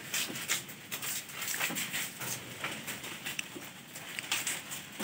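Goats moving about on a raised wooden-slat shed floor: scattered light clicks and taps from their hooves on the slats.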